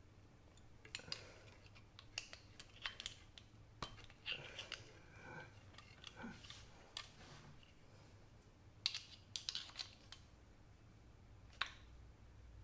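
Light metallic clinks, taps and short scrapes of small metal air-rifle parts and hand tools being handled, in irregular clusters with brief pauses between them.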